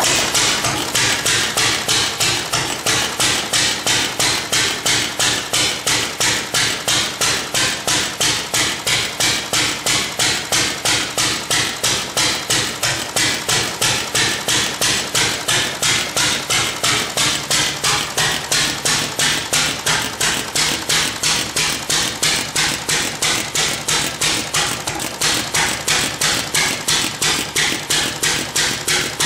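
International Harvester McCormick-Deering Model M 1.5 hp single-cylinder, throttle-governed engine running on its Wico EK magneto, giving a steady rhythm of sharp beats, about three a second.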